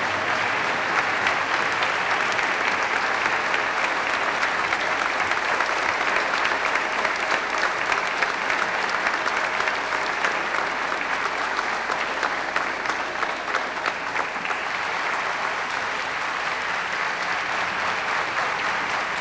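Audience applauding steadily, easing slightly in the last few seconds.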